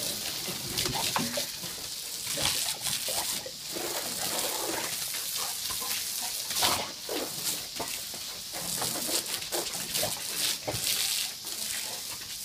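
Short vocal noises from a dog over the steady hiss of water spraying from a garden hose.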